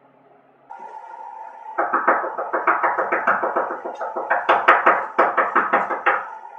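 Rapid, insistent knocking on a wooden office door, about five knocks a second for roughly four seconds, starting a couple of seconds in, over a steady hum.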